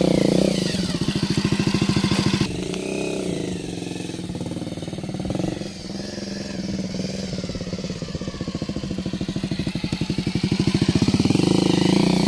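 Bajaj Avenger motorcycle's single-cylinder engine running under changing throttle. It is loud at first, eases off suddenly after about two and a half seconds, and builds up again near the end.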